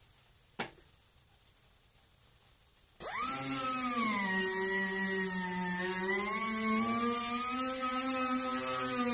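A single click, then about three seconds in an Astro air sander starts up suddenly and runs with a steady whine over the hiss of its exhaust air. Its pitch sags a little and then recovers.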